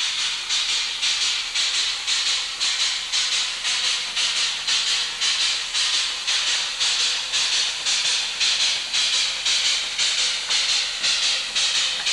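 Steam locomotive working steadily: an even beat of exhaust chuffs, about two to three a second, over a constant hiss of steam.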